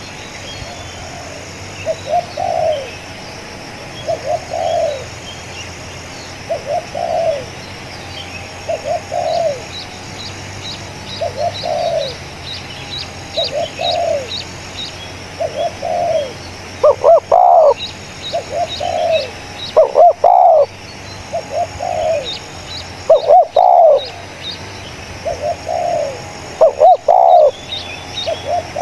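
Spotted doves cooing: a steady run of repeated coo phrases about every two seconds, with a much louder, closer dove joining from a little past halfway. Faint high chirping of small birds sits above the cooing.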